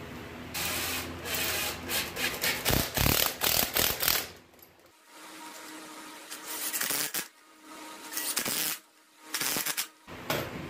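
Rough scraping and rubbing of a bark-covered log being shifted on a concrete floor for the first few seconds, then short loud runs of a cordless drill driving screws through a metal faceplate into the log.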